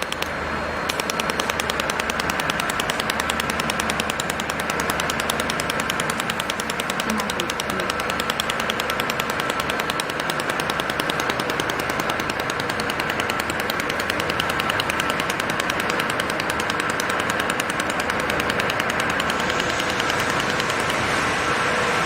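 A 400 W boom laser welding machine firing its laser in a rapid, evenly spaced string of sharp clicks over a steady machine hum. The clicking starts about a second in and keeps an even rhythm.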